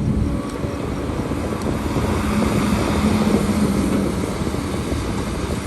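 Diesel engine of heavy earthmoving machinery running under load, its note shifting slightly in pitch as it works.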